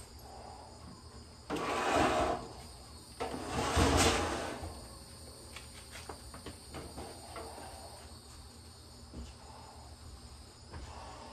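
Household objects and a cardboard box being handled and moved: two loud rustling, scraping spells a second or so apart, then quieter scattered clicks and knocks of handling.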